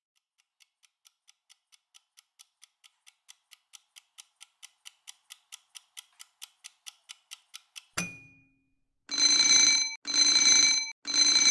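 Countdown timer ticking about four times a second, the ticks growing louder over the last seconds. At zero there is a single sharp hit, then the end-of-countdown alarm of three long, loud beeps about a second apart.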